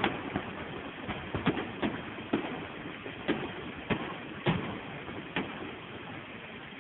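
Fireworks going off: a string of irregular sharp bangs, about one every half second to second, over a steady wash of background noise, thinning out near the end.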